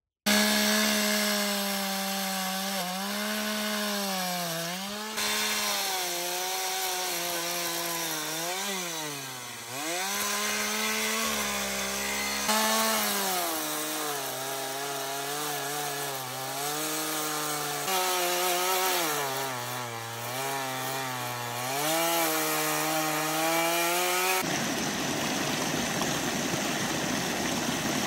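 Chainsaw cutting wood: a steady high engine note that sags in pitch as the chain bites in and climbs back as it frees, several times over. For the last few seconds the steady note gives way to a rough, noisy rasp.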